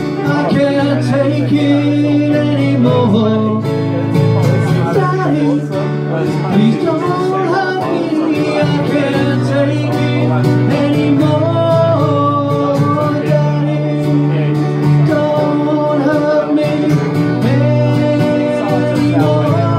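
Live song played on acoustic guitar and a Yamaha electric keyboard, with a man singing.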